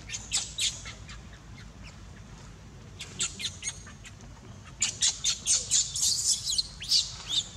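Baby macaque giving short, high-pitched squealing cries, a couple near the start, then a fast string of them in the second half.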